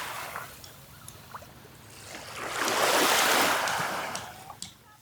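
Sea waves washing onto a shore: one surge of surf builds about two seconds in and dies away near the end, over a low wash of water.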